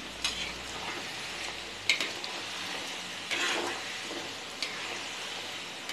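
Wheat-flour dough rolls deep-frying in hot oil in a metal kadai, a steady sizzle, nearly done. A metal slotted spoon stirs them, scraping and knocking against the pan a few times.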